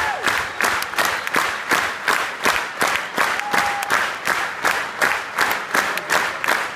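Theatre audience applauding, clapping together in a steady rhythm of about three claps a second, with a short whistle about three and a half seconds in.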